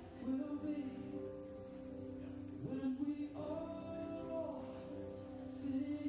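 Slow music with long held notes and a singing voice.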